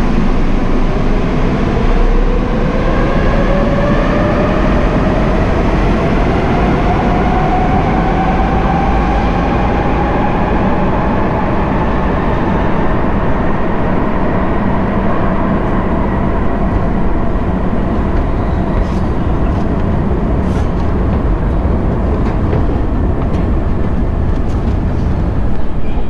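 Madrid Metro electric train pulling out: its motor whine rises steadily in pitch for about ten seconds over a loud, steady running rumble, then fades.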